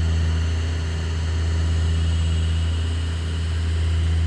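Wen 3420 variable-speed mini wood lathe running steadily at high speed, a steady low hum with fainter higher tones. It runs smoothly, with its handles not vibrating.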